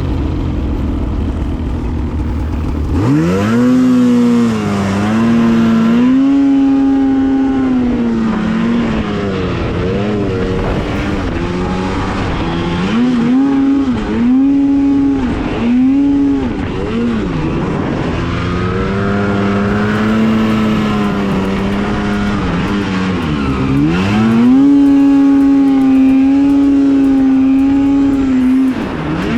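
Two-stroke snowmobile engine idling low, then throttled up about three seconds in. Its pitch rises and falls over and over as the throttle is worked, and it is held high and steady near the end.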